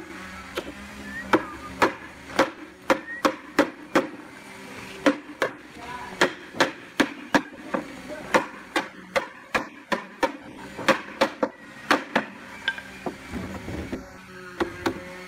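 Hammer striking a wooden table frame, a long run of sharp blows at about two to three a second that stops near the end.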